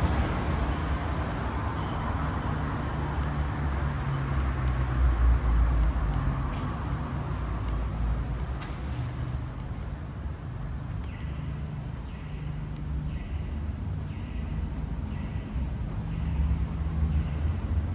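Road traffic: a vehicle passes, louder at first and fading over the first few seconds, over steady low traffic noise. From about eleven seconds in, a high beeping tone repeats about twice a second.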